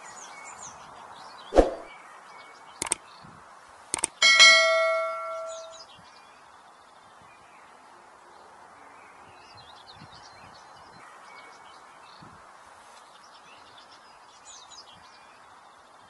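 A few sharp knocks, then a single metallic clang that rings on and fades over about a second and a half, over a steady background hiss with faint bird chirps.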